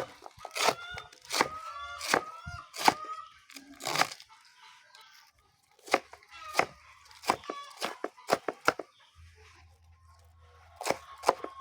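A blade chopping through fresh banana stem: a series of sharp, irregular cracking strikes, with a short pause a little before the middle. Chickens call in the first few seconds.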